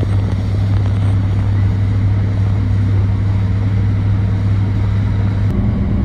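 Motorboat engine running steadily under way, a loud constant low hum with water and wind noise over it, heard from on board. Near the end the hum's tone changes abruptly.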